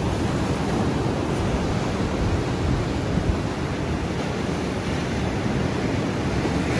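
Ocean surf washing onto a beach, with wind buffeting the microphone: a steady rushing noise, heaviest in the low end.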